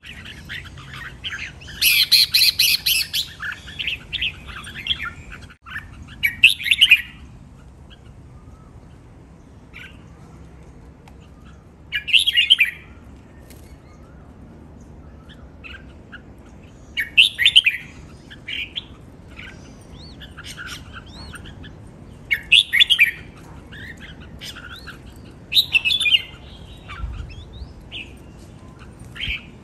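Red-whiskered bulbul singing short chirping phrases, about one every five seconds, the longest and loudest about two seconds in.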